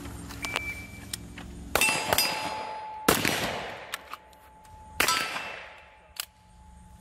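Three gunshots about a second and a half apart, each followed by a long fading echo, with steel targets answering in sharp pings and a steady metallic ring.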